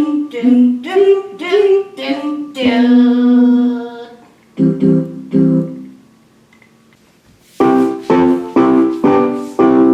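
A voice sings short notes of a broken chord, ending on a held note a little under three seconds in. A keyboard then plays two short chords, and after a pause the same kind of chord is struck four times in a row, about one a second and a half apart.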